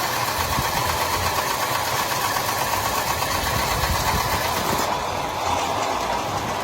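A small machine running steadily with a continuous, dense rattle.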